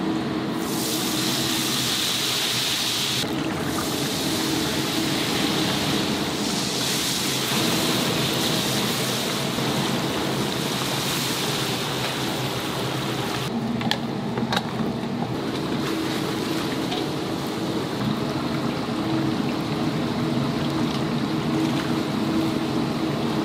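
Chicken deep-frying in oil in a cast-iron cauldron: a continuous sizzle that swells and eases, over a steady hum. A few sharp clicks come about 14 seconds in.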